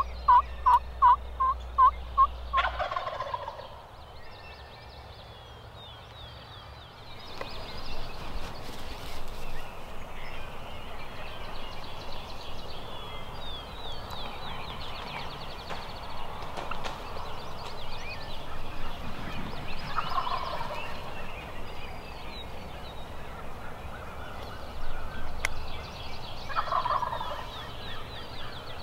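Wild turkey gobbling three times, each gobble about a second long, the first right after a string of about eight evenly spaced turkey yelps at the start.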